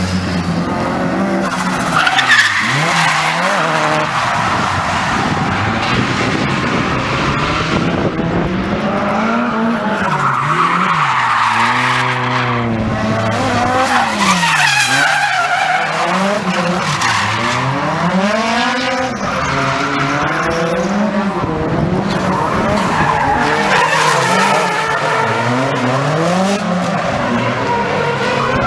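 Nissan Silvia drift cars sliding through corners with their tyres squealing throughout. The engines rev up and fall back again and again as the throttle is worked mid-drift.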